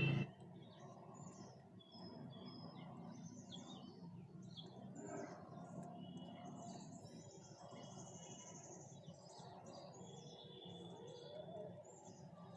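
Many small birds chirping: a busy scatter of short, high chirps throughout, over a steady low background noise.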